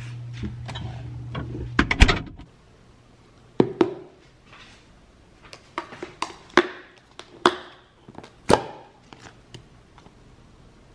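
Kitchen sounds at an open refrigerator: a steady low hum with rattling containers, ending with a loud thump about two seconds in as the hum stops. Then a plastic food container knocks down on a stone counter, followed by a string of sharp plastic clicks as its snap-lock lid latches are flipped open and the lid is pulled off.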